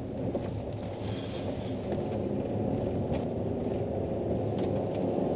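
Vehicle driving along a road: a steady low engine and road hum, with a few light knocks.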